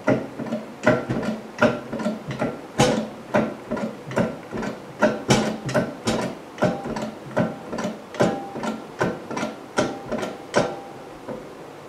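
A small jack being worked under load, clicking with each stroke about two to three times a second, then stopping about a second before the end.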